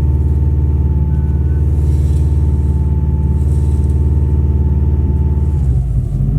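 Subaru WRX turbocharged flat-four engine held steady at about 3,000 rpm, then the revs drop near the end. The engine is being kept revved because at lower revs it wants to die out and stall.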